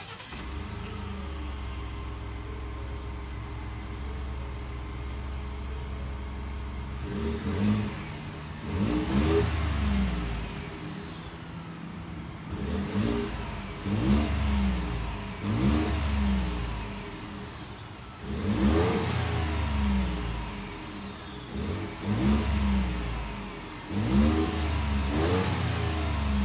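The 2019 Ford F-150's engine and exhaust, heard from behind the truck. It idles steadily for about seven seconds, then is revved in a series of short blips, each rising in pitch and falling back to idle, at intervals of one to three seconds.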